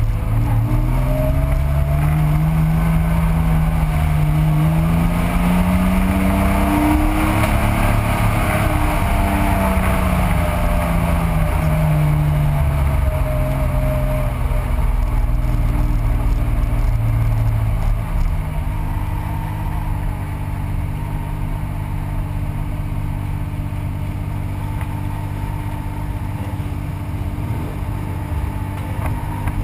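Air-cooled flat-six engine of a 1985 Porsche 911, heard from inside the car. For the first half it rises and falls in pitch as the car accelerates and eases off. From about halfway it settles into a steadier, slightly quieter run at low speed.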